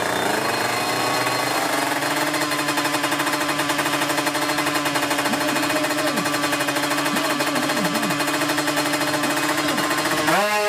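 Two-stroke Kawasaki Ninja 150 drag-bike engine held at high revs on the start line, a fast rattling note with a few brief dips in pitch. Near the end the revs climb sharply as the bike launches.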